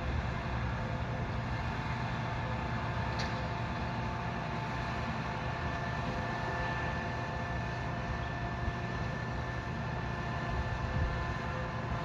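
Steady low rumble of heavy work machinery running, with faint steady tones held above it.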